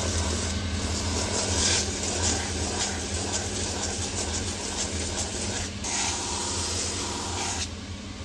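Shoe-finishing machine running with a steady motor hum while the sole of a boot is pressed against its sanding wheel, a grinding hiss that eases briefly a few times and stops near the end as the boot comes off the wheel.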